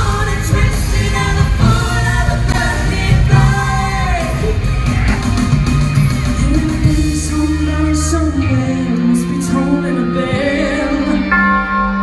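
Live pop show music: singers on handheld microphones over a loud backing track with a steady beat. About halfway through, the beat drops away and long held low notes carry the song.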